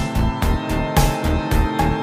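Background music with a steady beat: deep bass pulses and regular drum hits under held tones.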